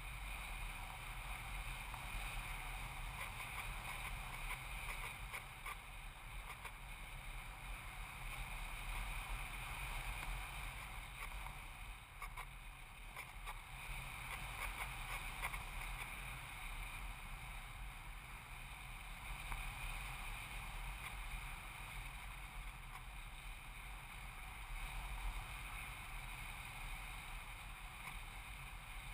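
Onboard sound from a radio-controlled electric foam glider in flight: a steady rush of air over the camera with a constant high whine from the electric motor, varying only slightly in level.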